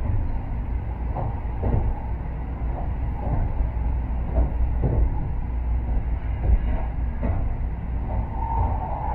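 Shinkansen bullet train running, heard inside the passenger cabin: a steady low rumble with irregular light knocks and rattles.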